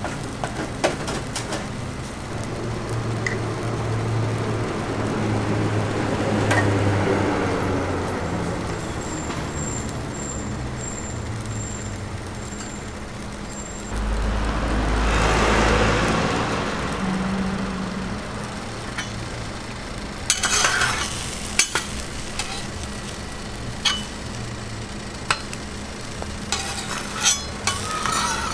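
Egg mixture sizzling on a flat-top griddle in square metal toast molds. A louder rush of noise swells and fades about halfway through, and sharp metal clinks and scrapes of the spatula and molds come several times in the last third.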